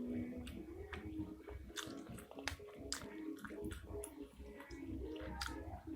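Close-miked chewing and wet mouth sounds of a person eating pentol mercon, chewy spicy meatballs, with many short irregular clicks.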